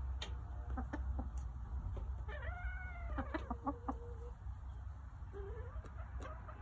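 Backyard hens calling and clucking: one drawn-out wavering call in the middle and a shorter rising one later. Scattered sharp ticks of beaks pecking at a pumpkin, over a steady low rumble.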